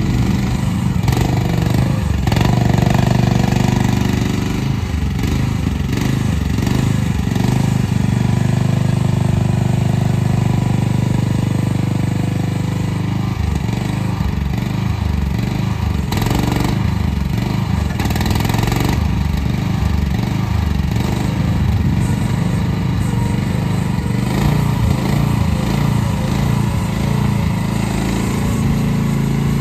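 Small 13.5 hp gasoline engine of a Machpro MP15 mini hydraulic excavator running steadily while the machine travels and turns on its rubber tracks. The engine pitch dips and recovers again and again as the controls are worked.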